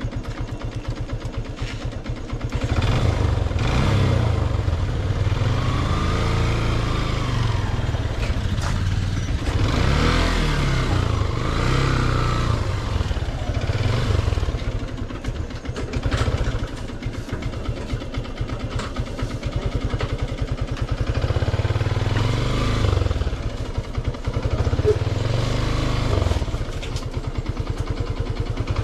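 Motorcycle engine running while being ridden, its note rising and falling several times with the throttle. It gets louder about two and a half seconds in.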